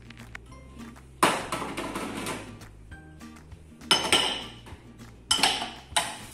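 Ceramic bowl clattering and scraping against a stainless steel mixing bowl and counter. A sharp knock with a scrape comes about a second in, followed by several more clinks and knocks in the second half.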